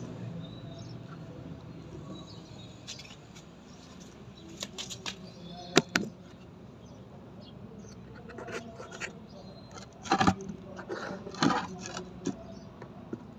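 Scattered clicks and knocks of tools and metal fittings being handled during repair work, with sharper knocks about six seconds in and twice near the end.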